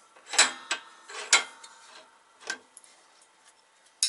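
Metal clanks and clinks from a bench vise being cranked as sockets press a control arm bushing out of its eye: several sharp clanks in the first second and a half, a single one about two and a half seconds in, then light ticks.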